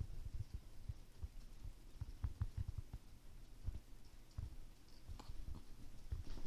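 Faint, scattered soft thumps and clicks from two cats batting at each other and shifting on a fabric sofa, with a few louder knocks near the end.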